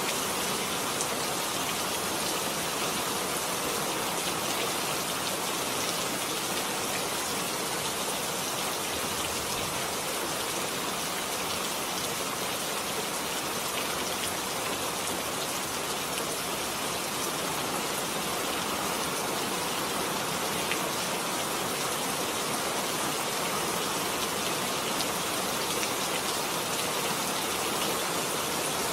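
Steady rain falling, an even hiss dotted with fine drop ticks, without letup.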